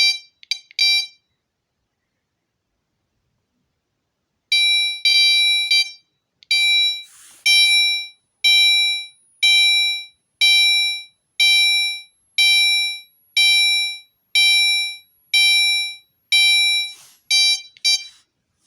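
Gentex Commander 3 fire alarm sounding its chime tone: repeated electronic chime notes that strike and fade. A few quick notes come at the start, then after a short pause the notes ring about once a second, coming faster near the end.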